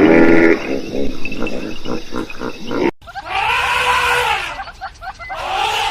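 Farm animal calls: a loud call at the start followed by a quick run of short grunts, then two long calls that rise and fall in pitch, each about a second long.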